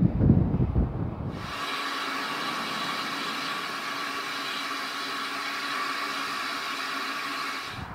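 A low rumble that cuts off suddenly about one and a half seconds in, followed by a steady hiss of steam escaping from a standing steam locomotive.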